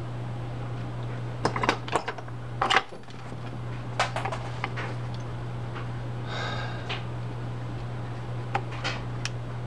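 Irregular small metal clicks and taps as a pick works at the spring clip that holds a rear-drag spinning reel's drag stack in, the loudest just before three seconds in, with a brief scrape about two-thirds of the way through. A steady low hum runs underneath.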